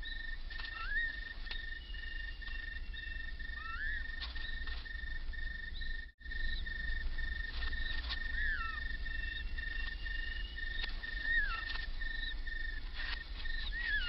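Natural undergrowth ambience: an insect, likely a cricket, trilling steadily on one high pitch, with a short chirping call, rising then falling, repeating every two to three seconds.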